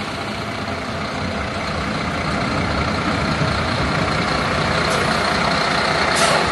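Heavy diesel dump truck engine running close by, growing steadily louder, with a brief hiss near the end.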